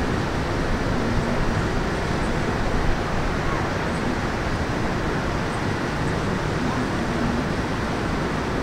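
Steady urban ambience of road traffic noise, an even wash of sound with no single event standing out.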